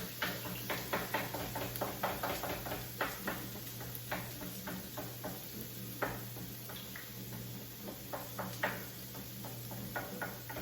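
Irregular clicks and taps at a frying pan on the stove, quick in the first few seconds and sparser later, over a steady low hum.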